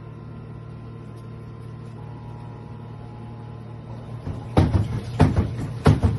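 Washing machine running with a steady low hum; about four and a half seconds in it starts knocking in a regular beat, roughly one and a half thumps a second, like a drum rhythm.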